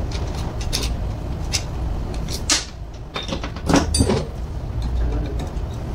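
Truck alternator and its metal parts handled on a workbench: scattered sharp metallic clicks and knocks, with a louder clatter around four seconds in as the unit is moved, over a steady low hum.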